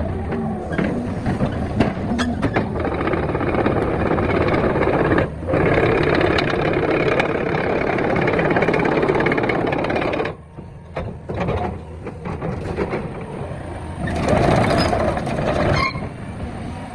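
Excavator's diesel engine running loud and steady with hydraulic working noise, briefly dropping off a few times and swelling again near the end.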